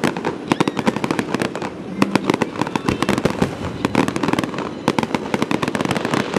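Fireworks display: a dense, continuous run of sharp cracks and pops, many per second, with people's voices mixed in.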